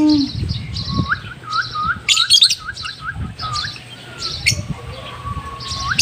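Caged African lovebirds chirping and twittering, with many quick high chirps throughout and a run of about ten short rising notes lower in pitch in the first half.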